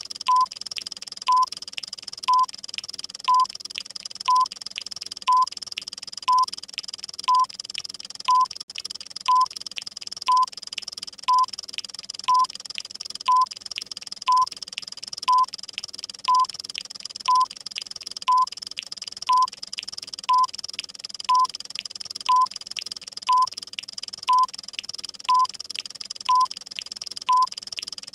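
Countdown-timer sound effect: a short electronic beep about once a second over a rapid, steady clock ticking.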